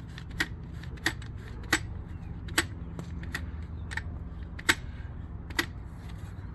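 Ratcheting trigger of a one-handed bar clamp clicking as it is squeezed, a sharp click about every three-quarters of a second, as the clamp presses the tyre sidewall to break the bead off the rim.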